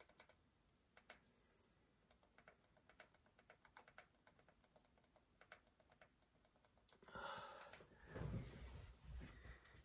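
Faint, quick clicks of buttons being pressed several times a second. About seven seconds in, a louder stretch of handling noise with a low rumble takes over.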